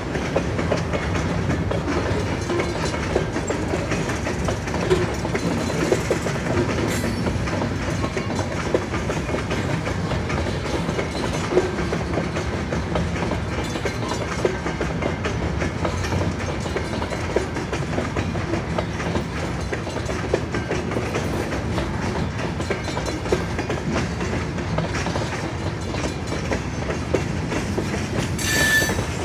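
Freight cars (covered hoppers and a boxcar) of an Escanaba & Lake Superior train rolling through a grade crossing: a steady rumble with the clickety-clack of wheels over the rail joints and scattered sharp knocks. A short high squeal comes near the end.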